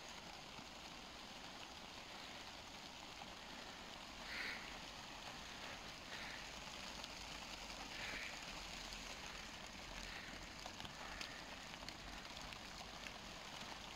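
Rain falling on plastic sheeting over stacked bricks: a faint, even hiss with scattered small ticks of drops, and a few brief louder rustles every couple of seconds.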